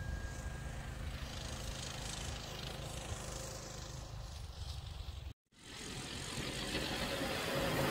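A steady low rumble, cut by a brief moment of silence about five seconds in, followed by a minibike's small engine running as it approaches, growing louder toward the end.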